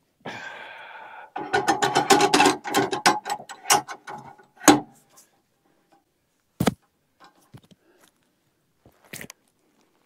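A cant hook levering a heavy log on a sawmill bed: a short creak, then a couple of seconds of rapid clicking and creaking as the hook and log shift, a single loud knock near the middle, and two more sharp knocks later on.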